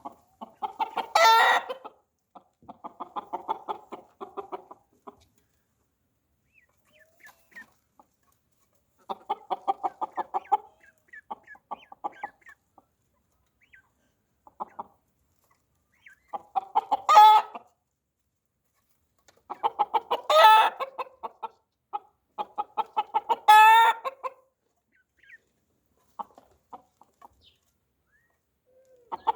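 Chickens clucking in rapid runs, broken by four loud, short, high calls spread through the stretch, with quiet gaps between.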